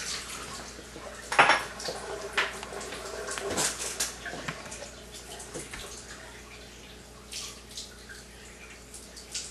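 Clinks and knocks of a cup and kitchen items being handled on a counter, the loudest about a second and a half in. Under them, water from the water ionizer's outlet hose runs into the sink.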